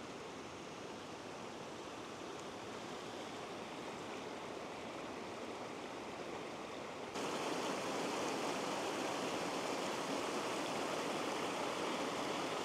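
Small forest creek rushing and splashing over rocks in a steady wash of water, which jumps louder about seven seconds in.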